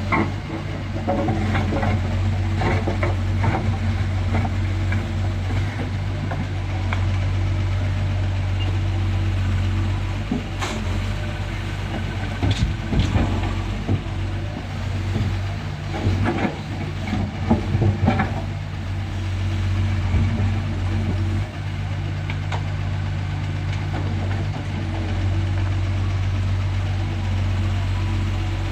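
Doosan DX140 excavator's diesel engine running steadily, with scattered clanks and knocks as the bucket works and soil is loaded.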